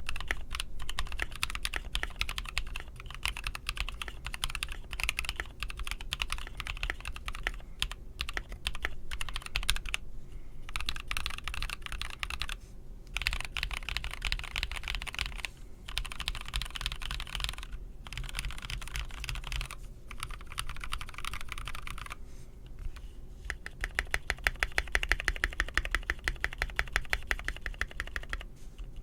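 Typing on a Tofu 65 mechanical keyboard with NovelKey Cream switches lubed with Krytox 205g0 and a brass plate: fast, continuous keystrokes with a few short pauses. Near the end comes a fast, very even run of strokes.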